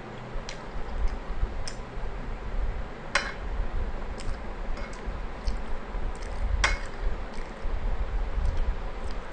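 Close-miked eating sounds: chewing with small wet mouth clicks, while a metal spoon scoops curry from a glass bowl, giving two sharper clinks about three seconds in and near seven seconds.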